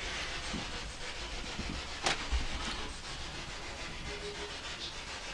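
Steady hiss with a few soft low bumps and one sharp click about two seconds in.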